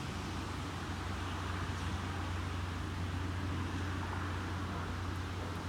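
Steady low rumble under an even hiss: outdoor background noise with no distinct event.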